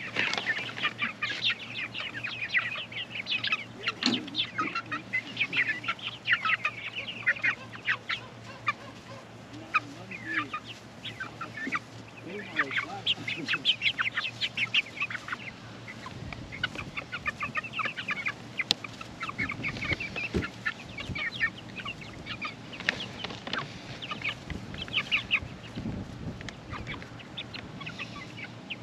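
A flock of young chickens calling in many short, quick notes as they crowd around to be hand-fed.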